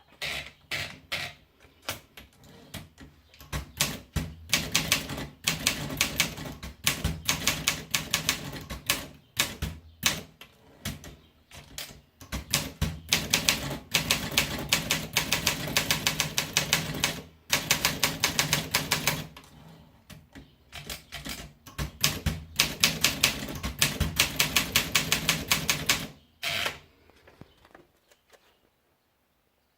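Olympia SM7 manual portable typewriter being typed on: runs of rapid keystrokes several seconds long, broken by short pauses. The typing stops about two seconds before the end.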